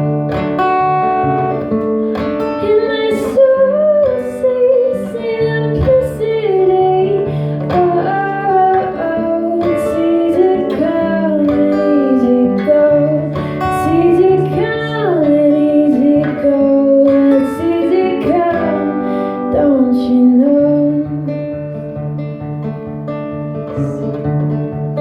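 Live acoustic guitar music, with a sliding sung melody over it for most of the passage; near the end the melody drops out and the guitar chords carry on alone.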